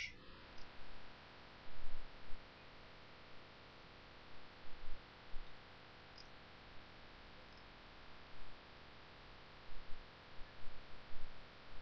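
Steady faint hiss and low hum of a desk microphone's background noise, with a few soft, low knocks now and then.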